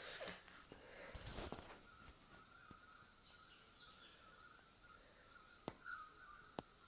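Insects, crickets or similar, chirring steadily in a high, thin, continuous tone. There are two short scuffing noises in the first two seconds and two faint clicks near the end.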